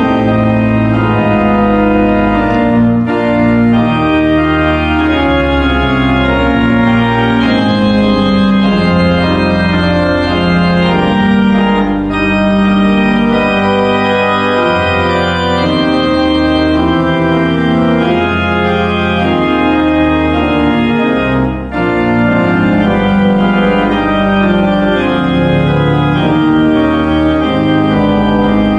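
Organ music: slow, sustained chords held and changing without a break, with one short dip in sound a little past two-thirds of the way through.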